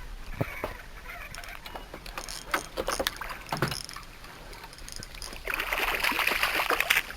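Light knocks and clicks of gear being handled in a small fishing skiff, then from about five and a half seconds a louder, steady rush of water noise.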